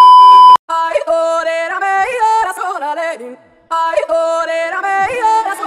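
A loud, steady test-pattern beep at one pitch for about half a second, the tone that goes with TV colour bars. It is followed by a single voice singing a short wavering, yodel-like phrase, which breaks off briefly and then repeats.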